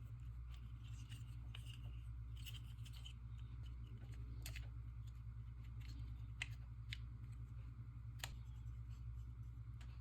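Faint scattered clicks and light scratching over a steady low hum.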